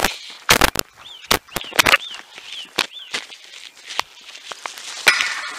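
Footsteps on a path, irregular sharp steps and scuffs, with a small bird giving about five short rising-and-falling chirps between one and three seconds in. A hiss starts near the end.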